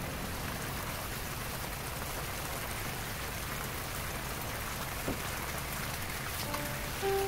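Soy and chili sauce bubbling and sizzling in a frying pan around slices of konjac, a steady hiss, with one light tap about five seconds in. Music comes in near the end.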